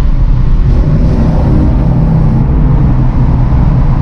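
Engine of a 1967 Ford Mustang fastback running steadily under way, heard loud from inside the car's cabin.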